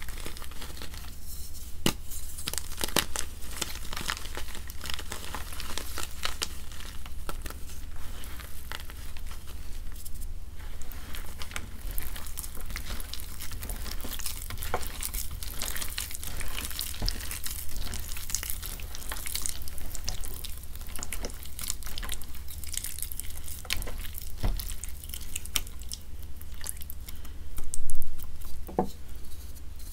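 Water-soaked gym chalk crumbling and crackling between fingers in a bowl of water, with wet squishing as the broken chalk is stirred and pressed into a paste. There is a louder spell of squishing near the end.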